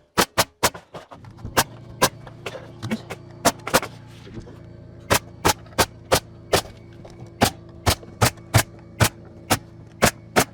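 Pneumatic nail gun firing nails into wall framing and sheathing: a quick run of shots, then a steady two or so a second. A steady machine hum, typical of an air compressor running, starts about a second in.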